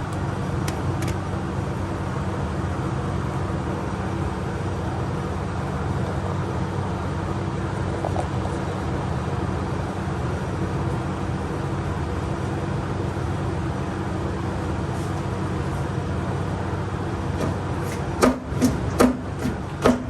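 Steady low mechanical hum, then near the end a quick run of about six sharp knocks as the steering shaft is worked and yanked loose from the power steering box.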